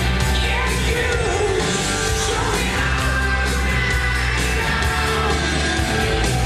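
Loud rock music with a singer, played through the hall's loudspeakers as the backing track for a dance routine, over a steady heavy bass.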